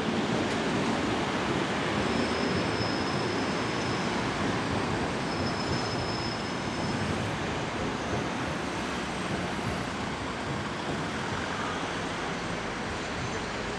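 City trams running along their street tracks, with road traffic. It is a steady rolling rumble that eases slightly as the trams move off, with a faint high squeal twice in the first half.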